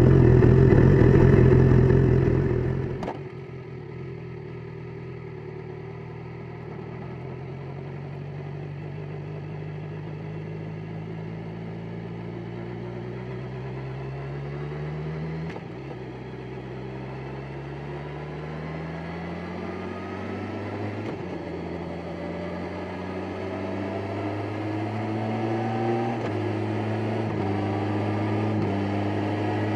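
BMW S1000XR's inline-four engine pulling in sixth gear from low revs, its note rising slowly as the bike gathers speed, easing back twice and climbing again. Louder for the first three seconds, then dropping sharply.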